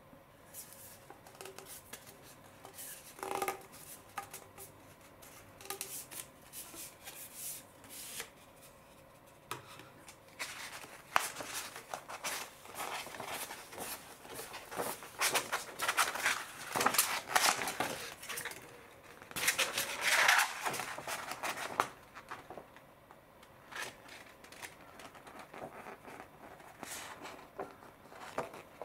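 A rolled paper poster and its cardboard tube handled by hand as the poster is unrolled and flattened: crisp paper rustling and crackling. The sound is light and scattered at first, then busier and louder through the middle, and dies back to light rustles near the end.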